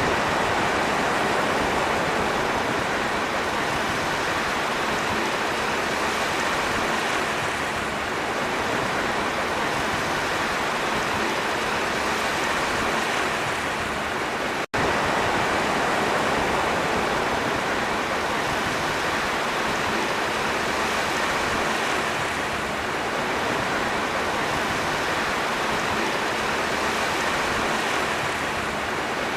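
Sea surf: a continuous, steady rushing of waves with only slight swells, broken by a brief dropout about halfway through where the recording loops.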